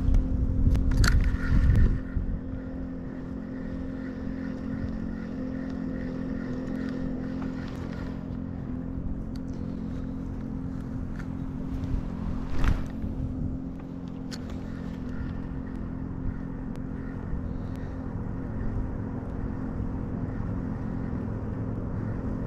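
A steady motor hum at a few fixed pitches runs throughout, with a loud low rumble in the first two seconds and a single sharp knock about halfway through.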